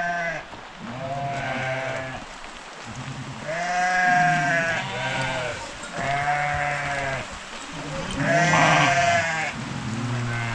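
A flock of sheep and lambs bleating in their pen: a call about every second or two, sometimes two overlapping, the loudest about four seconds in and again near nine seconds.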